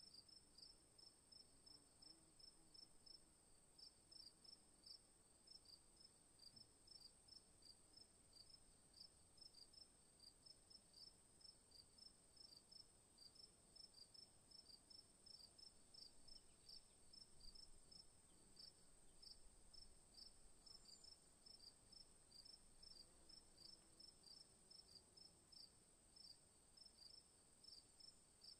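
Faint insect chirping, cricket-like: short high chirps repeating several times a second without pause, over a steady high-pitched trill.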